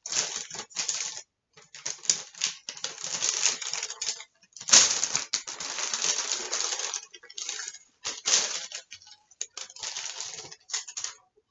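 A paper takeout bag crinkling and rustling as it is unfolded and handled, in bursts with short pauses.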